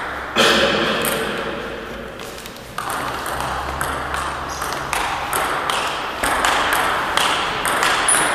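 Table tennis rally: the ball clicking sharply off the rubber paddles and the Donic table, a hit every half second to a second after a short pause near the start. Each click rings on in the echo of a large gym hall.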